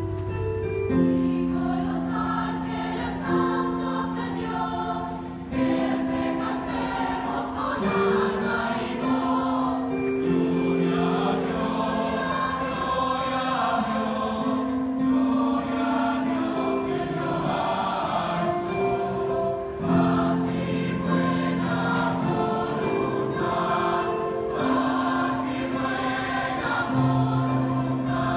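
Mixed choir of women's and men's voices singing in harmony, holding long chords that change every second or two.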